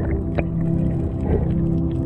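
Slow ambient background music made of held, sustained tones, with a few short clicks over it.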